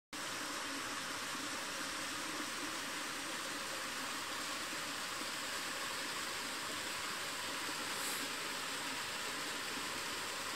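Small mountain waterfall running with a modest winter flow, pouring down a rock cleft onto stones: a steady rushing hiss of falling water that cuts in suddenly at the start.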